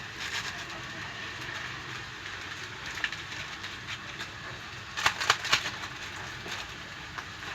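Small anchovies (ikan teri) frying in hot oil in a pan: a steady sizzle, with a few sharp clicks and a quick cluster of them about five seconds in.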